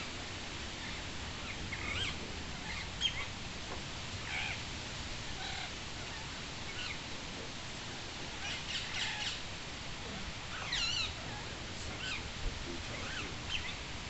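Rose-ringed parakeets calling: scattered short chirps and a few sweeping squawk-like calls, the strongest clusters coming past the middle and again a little later, over a steady background rush.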